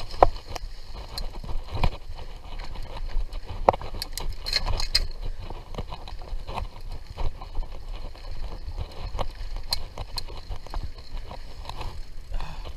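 Mountain bike being ridden along a dirt trail: a steady low rumble with frequent clicks and rattles from the bike jolting over bumps, and a cluster of sharper clicks about four and a half seconds in.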